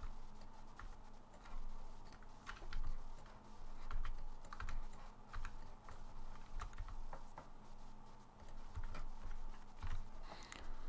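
Computer keyboard and mouse being worked, a scatter of irregular short key taps and clicks.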